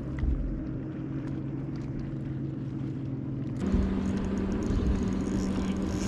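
A boat motor running steadily, its hum stepping up to a higher pitch about halfway through.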